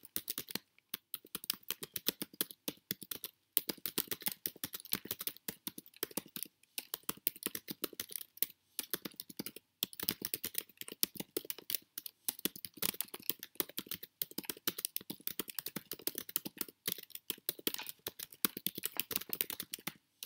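Typing on a computer keyboard: a fast, uneven run of key clicks, broken by a few short pauses.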